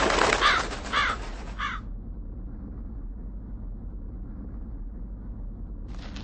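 A crow cawing: about four harsh calls in the first two seconds, then only a low steady background. Near the end a crackling hiss begins.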